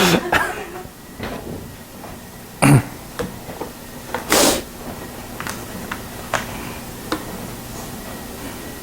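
Writing sounds: a few sharp pen taps and short scratchy strokes, one louder click about two and a half seconds in and a longer stroke soon after, then lighter taps.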